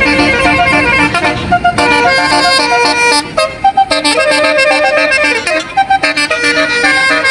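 Bus basuri telolet horn playing a melody: a quick run of short, pitched horn notes stepping up and down in a tune.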